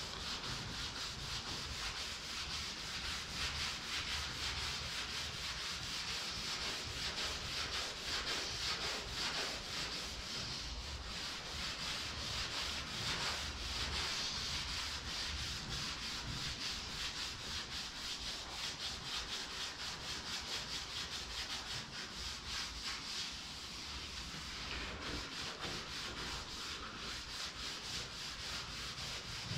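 Steady, fast back-and-forth hand scrubbing on the wet painted surface of a truck hood. The top layer of repaint is being rubbed off to expose the original paint underneath.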